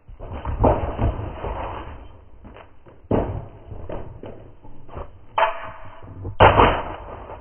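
A man stomps onto a laptop lying on a skateboard, with a heavy thud and hard plastic clattering on brick paving. Several more sharp knocks and clatters follow as the laptop and skateboard land and the pieces are picked up.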